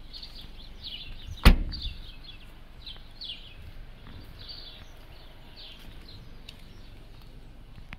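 A hatchback car's tailgate slammed shut once, a single sharp thud about a second and a half in. Birds chirp repeatedly throughout.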